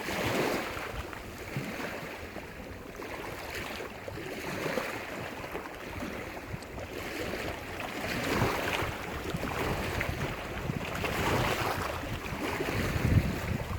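Small waves breaking and washing on a lake shore, the surf swelling and easing every couple of seconds, with wind buffeting the microphone.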